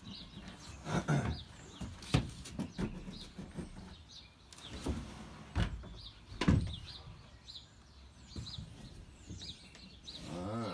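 Several knocks and rattles from a van's cab headliner panel being pushed and handled while it is still held up by hidden fixings, with birds chirping in the background.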